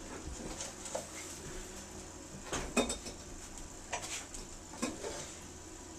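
A dog eating snow from a bowl on a tile floor: a handful of short clinks and knocks as the bowl moves on the tiles while it eats.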